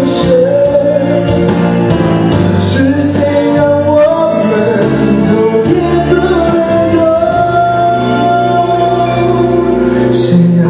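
A man singing a pop ballad into a handheld microphone over instrumental accompaniment, holding some long notes.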